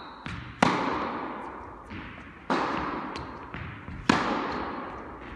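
Tennis balls struck by rackets during a rally in a large indoor hall: three sharp hits, each followed by a long echo, with fainter ball bounces in between.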